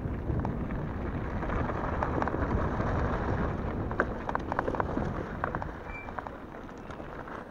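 Wind buffeting the handlebar camera's microphone as an e-bike rides fast down a gravel track, with tyres rolling over the gravel. Sharp clicks and knocks from stones and bumps are thickest about four to five seconds in. The noise eases near the end.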